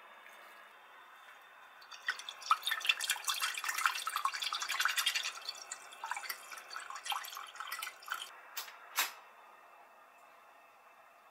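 Small wire whisk stirring miso into dashi broth in an enamel milk pan: the liquid swishes and the whisk's wires click, busiest for about four seconds and then easing off. One sharp click comes about nine seconds in.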